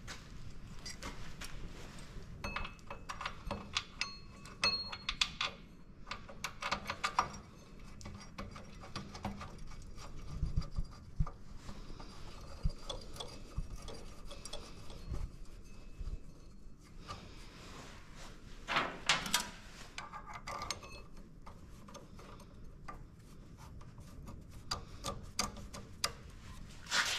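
Small steel parts being handled and fitted: scattered metallic clicks, clinks and rubbing as a bolt, spacer and brake band bracket are put onto a minibike's band brake drum by hand. There is a brief metallic ring a few seconds in and a louder clank about 19 seconds in.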